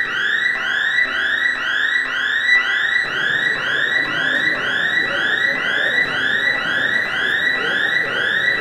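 Electronic alarm siren whooping: a rising tone repeated about twice a second, each sweep climbing quickly and then levelling off.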